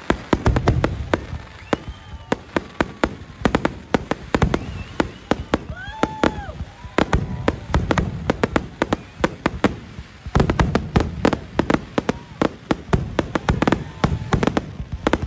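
Aerial fireworks shells bursting in quick succession: a dense run of sharp bangs and crackles, several a second, over a low rumbling boom.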